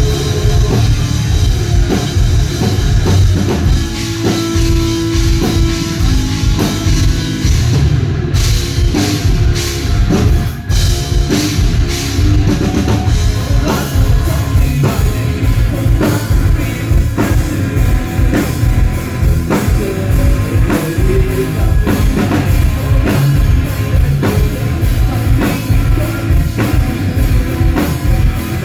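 Loud rock music with a drum kit, heavy bass and singing.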